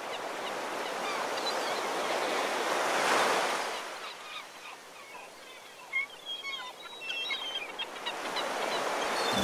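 Ocean waves surging and washing back, one swell rising to a peak about three seconds in and another building near the end. Short bird calls come through in the lull between them.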